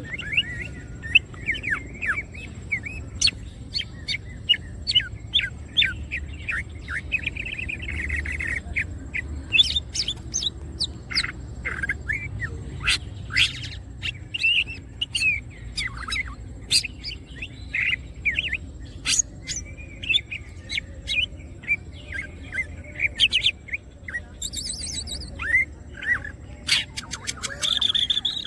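Cucak ijo (green leafbird) singing continuously: a fast, varied stream of chirps, short whistled phrases and sharp chips, with a faint low hum underneath.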